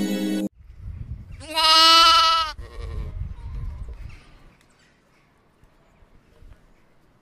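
A cat meows once, loudly, for about a second, starting about a second and a half in, followed by a few fainter sounds. Music cuts off just before it.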